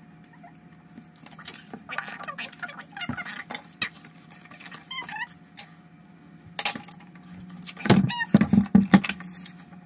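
Paper and a card file folder being handled on a tabletop: rustling and sliding sheets with light knocks and a few squeaks. The loudest knocks and rustles come near the end.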